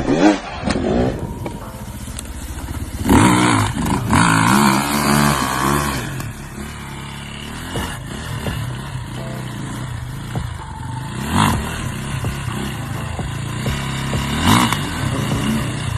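Off-road vehicle engine revving hard about three seconds in, then running more steadily, with two short throttle bursts near the end.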